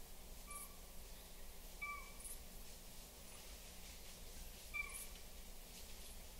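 Three short, slightly falling animal calls about half a second, two seconds and nearly five seconds in, over a faint steady background ambience.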